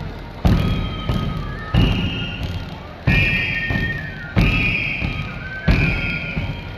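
Large double-headed bass drums beaten in a slow, steady march, a heavy stroke about every second and a quarter with lighter taps between, under a high-pitched cane flute (pito) melody.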